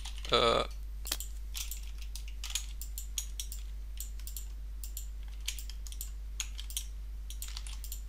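Typing on a computer keyboard: irregular single keystrokes and short runs of clicks, about one or two a second.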